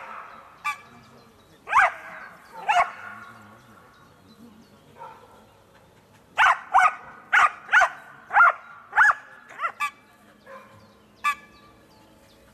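A dog barking: two single barks in the first few seconds, a quick run of about eight barks a little past halfway, and one last bark near the end.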